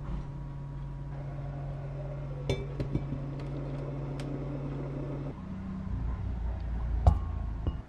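Cast-iron lid set down onto a cast-iron pot: a few metallic clinks about two and a half to three seconds in, over a steady low hum. Near the end, one sharp clink.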